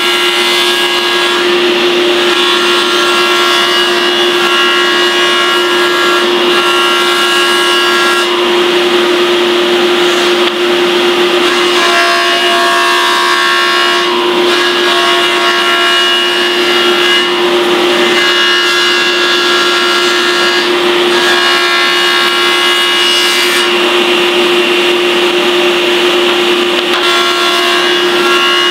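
Table saw running steadily, its blade cutting into a wooden seat blank pushed across it in a jig to scoop out a saddled chair seat. A higher cutting tone comes and goes every few seconds as the wood is fed.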